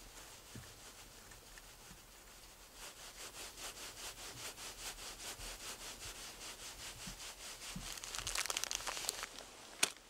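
Metal telescopic marshmallow roasting fork being worked in the hands, giving a rhythmic scraping rub of about four strokes a second that grows louder. A sharp click comes near the end.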